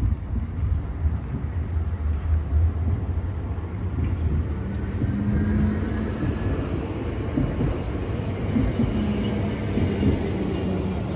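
Electric city tram running along the street: a steady low rumble, with a faint motor hum joining in the second half.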